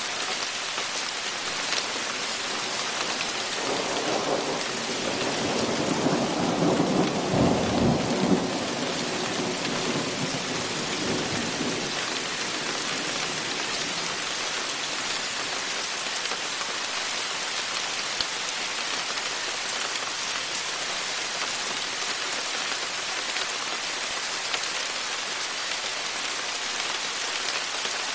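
Rain falling steadily during a thunderstorm. A roll of thunder rumbles in about four seconds in, is loudest around seven to eight seconds, and dies away by about twelve seconds.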